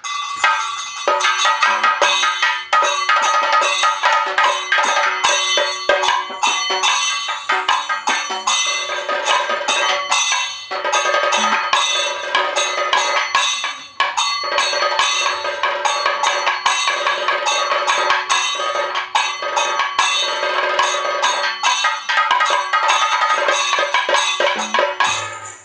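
Kathakali percussion accompaniment: fast, dense drum strokes under ringing metal percussion, breaking off briefly about 11 and 14 seconds in.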